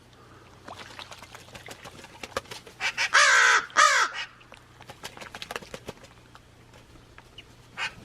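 A crow cawing, two loud harsh caws about three seconds in, with faint scattered clicks around them.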